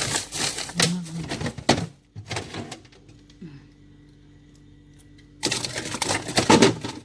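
Bursts of rustling and clattering as food packages are moved around inside a refrigerator, with a low steady hum in the pause between them.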